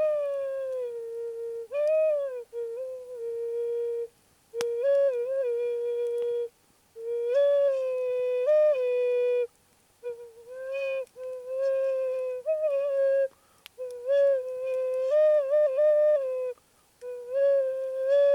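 A flute playing a simple tune of held notes within a narrow range, in short phrases with brief breaks between them.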